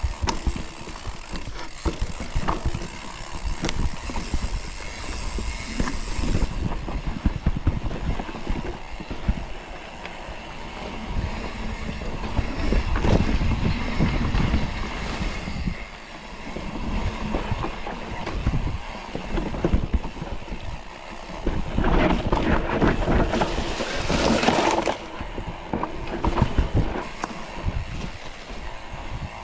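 Mountain bike rolling and rattling over rough trail ground, with many small knocks. About twenty-two seconds in comes a louder, rough rushing noise that lasts about three seconds.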